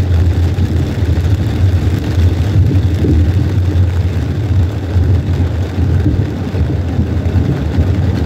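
Steady low rumble inside a moving car's cabin on a rain-soaked highway: engine, tyre and road noise on wet pavement.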